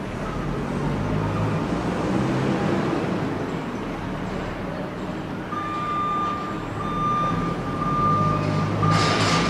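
Road traffic noise with a heavy vehicle running, and a thin high beeping tone that keeps breaking off and coming back over the second half; a broader hiss swells near the end.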